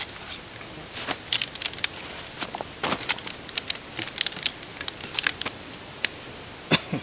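Fabric rustling and a string of sharp clicks and clacks as the REI Flexlite Chair's folded pole frame is pulled from its nylon stuff sack and its shock-corded aluminum poles snap out and into their hubs; the loudest clack comes near the end.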